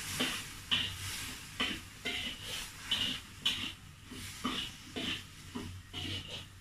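Spatula scraping and stirring food around a wok, a dozen or so irregular strokes, over a steady sizzle of chicken and potato frying.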